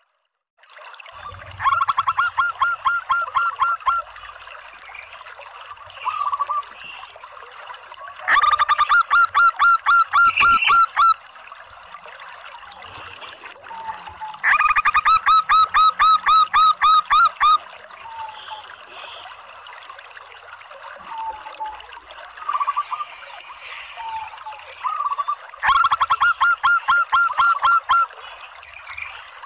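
Female zebra dove (perkutut) calling in four bouts of rapid, evenly repeated notes, each bout lasting two to three seconds, with a few softer single notes between bouts. This is the female's call, which draws male zebra doves into cooing.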